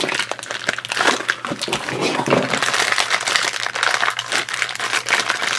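Foil blind bag crinkling as it is pulled out of a small cardboard blind box and worked open by hand.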